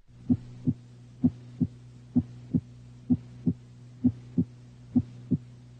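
Normal heart sounds as heard through a stethoscope: six regular lub-dub pairs, S1 from mitral valve closure followed about 0.35 s later by S2, with a longer pause before the next S1, at about 60 beats a minute. A steady low hum runs underneath.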